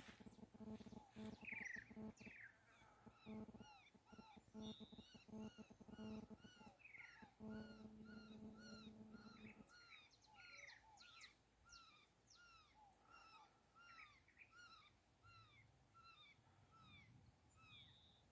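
Chorus of small birds chirping, many short, quick, falling notes repeated over and over. A low hum runs under them and stops about halfway through.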